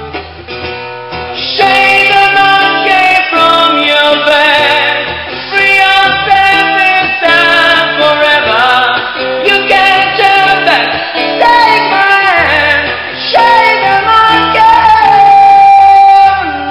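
Live rock song: a man singing high, with wavering vibrato and a long held note near the end, over acoustic guitar.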